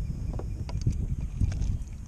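Wind rumbling on the microphone, uneven and gusty, with a few faint light ticks over it.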